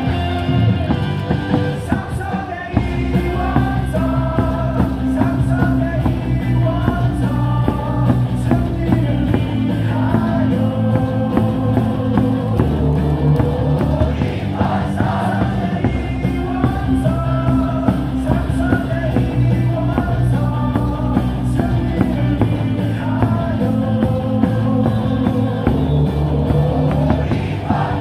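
Baseball cheering song played loud over a stadium's public-address speakers: sung melody over a heavy, steady bass beat.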